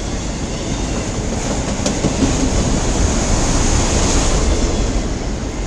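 Long CN mixed freight train rolling past, a steady rumble of freight cars and wheels on the rails.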